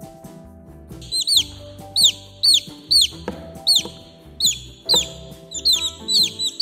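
Baby chicks peeping: a string of short, high, falling cheeps, about two a second, starting about a second in.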